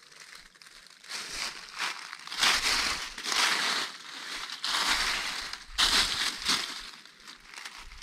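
Footsteps through dry fallen leaves and low forest undergrowth: noisy bursts about once a second, starting about a second in and loudest through the middle.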